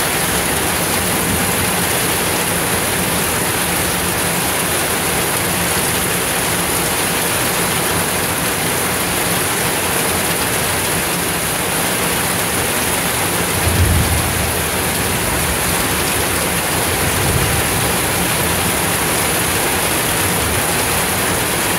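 Heavy rain pouring steadily onto pavement in a thunderstorm, a dense even hiss. A low rumble of thunder comes in about two-thirds of the way through, and a weaker one a few seconds later.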